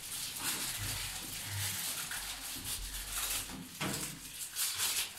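Plastic ice-lolly wrappers rustling and crinkling as they are torn open, several at once, in an irregular crackle.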